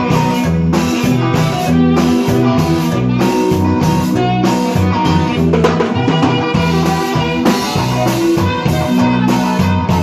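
Band music with a drum kit and guitar playing over a steady, even beat.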